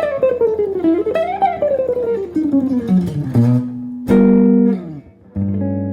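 Small-body archtop guitar with Kent Armstrong '57 humbucker pickups playing quick single-note runs up and down the neck. About four seconds in a chord is struck, and a second later a final chord is left to ring and fade.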